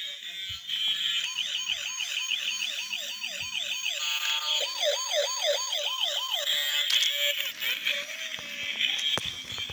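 Electronic siren-like warble from a light-up spinning toy's built-in sound chip: a run of quick up-and-down pitch sweeps, about three a second, broken in the middle by a short held tone before the sweeps resume.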